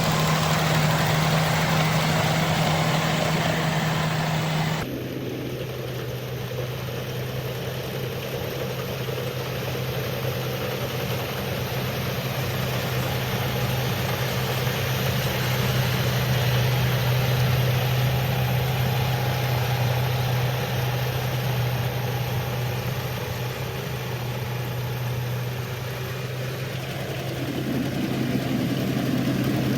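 Combine harvester engine running steadily, with a constant low hum; its tone shifts abruptly about five seconds in and grows louder again near the end.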